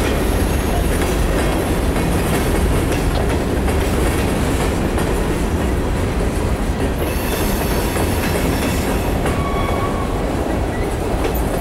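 Freight train cars, covered hoppers and then tank cars, rolling steadily past: a continuous noise of steel wheels on rail with a clickety-clack over the rail joints.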